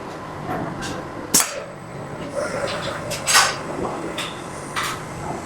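Industrial machinery in a robot work cell: a steady background hum with a faint high whine, broken by several short, sharp hisses and clacks at irregular intervals, the loudest about a second and a half in and one a little over three seconds in.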